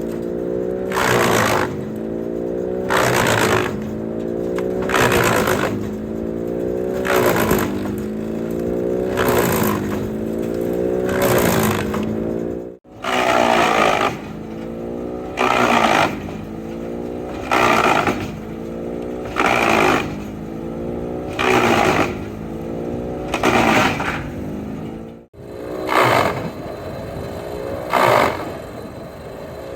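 Engine-driven wood chipper chipping milling offcuts. A loud chipping burst comes about every two seconds while the engine note sags and climbs back between pieces.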